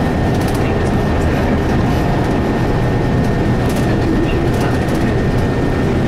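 Cummins ISC inline-six diesel and Allison automatic transmission of a 2002 Blue Bird 40-foot transit bus, heard from inside the bus while it drives: a steady, even engine drone with a few light rattles.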